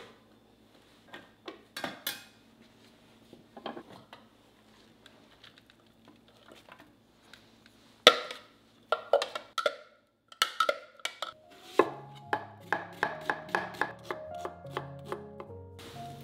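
Kitchen handling sounds: scattered clicks and knocks as a food processor's lid and bowl are handled, with a sharp knock about eight seconds in. From about twelve seconds in, a quick run of knocks plays over soft background music.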